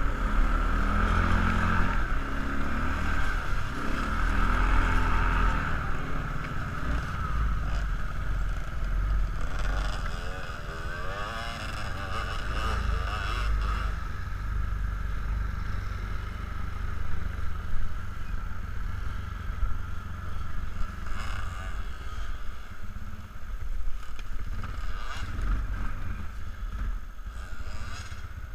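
ATV engine running under way, heaviest in the first six seconds, then quieter and rising and falling unevenly.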